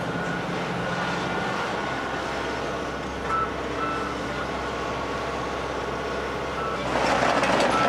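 Volvo ECR145EL hi-rail excavator's diesel engine running steadily while the machine swings its boom, with a high-pitched warning alarm beeping intermittently. A louder, rougher noise comes in near the end.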